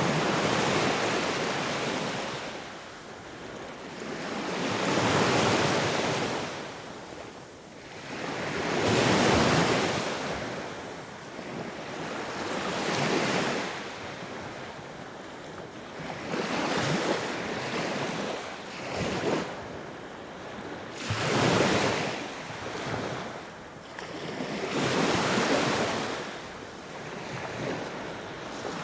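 Sea waves breaking and washing onto the shore, each swell of surf rising and falling every three to four seconds.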